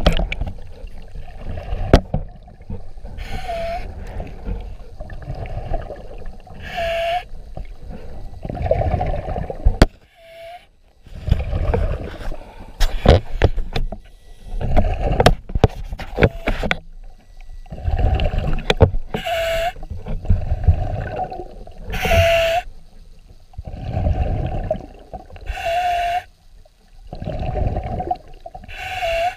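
Scuba diver breathing through a regulator underwater. Each breath is a short hissing inhale with a brief whistle-like tone at its end, followed by a longer burst of rumbling exhaust bubbles, repeating every few seconds, with scattered sharp clicks in the middle.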